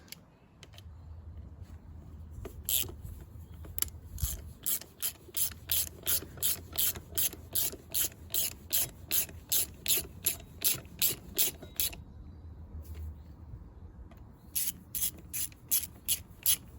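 Hand ratchet clicking in a steady rhythm of about three clicks a second as it runs in the rear brake caliper carrier bolts of a BMW R1200GS. The clicking starts a couple of seconds in, stops for about two seconds near the end, then starts again.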